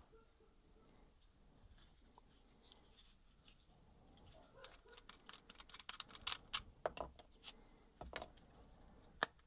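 Small plastic clicks and taps of a DJI Osmo Action 5 Pro camera and its mount pieces being handled, a mount pulled off and the parts set down on a silicone work mat. Little is heard for the first few seconds, then the clicks come thick and fast, with one sharp click near the end.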